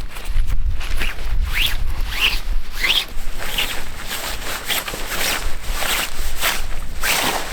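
A zipper being drawn in a series of short strokes, roughly one or two a second.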